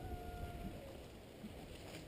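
Low rumble of wind and movement on an action camera's microphone, with a faint steady whistle-like tone that fades out about half a second in.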